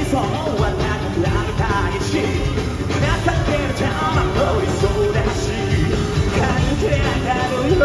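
Live Japanese rock band playing loud, with a male lead vocalist singing over driving guitars and drums, heard through a fan's recording of the concert.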